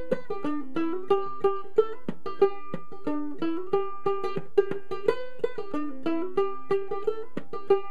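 Solo ukulele played clawhammer style in standard tuning, an old-time fiddle tune in G: a steady run of quick, bright plucked notes with down-stroke strikes and a repeated thumbed drone string.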